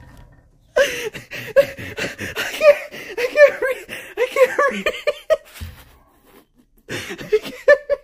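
A man laughing hard: a long run of quick, high-pitched 'ha-ha' pulses for about four and a half seconds, then a shorter burst of laughter near the end.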